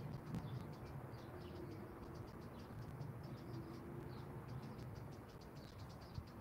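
Faint outdoor ambience: rapid, irregular high-pitched chirping throughout over a steady low rumble.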